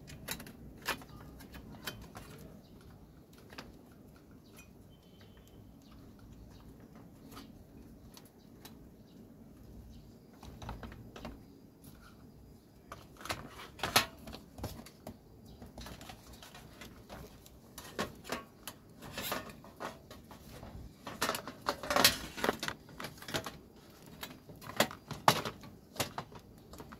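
Scattered plastic clicks and knocks as the rice cooker's internal parts and plastic housing are handled and pressed back into place. The clicks are sparse at first and come more often and louder in the second half.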